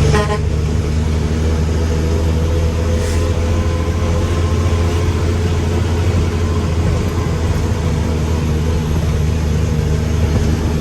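Mack dump truck's diesel engine running steadily, low and even.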